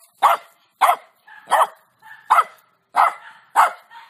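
A hairless dog barking repeatedly: six short, sharp barks about two-thirds of a second apart.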